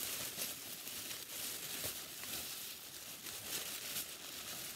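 Plastic packaging crinkling and rustling as it is handled, with irregular small crackles.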